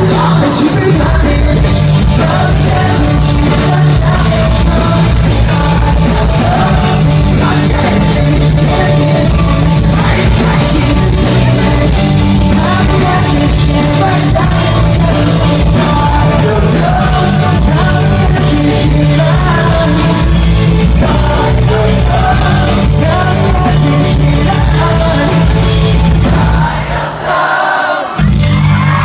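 Live pop-punk band playing loud, with a lead vocal singing over electric guitars, bass and drums. Near the end the band drops out for a moment, then comes back in.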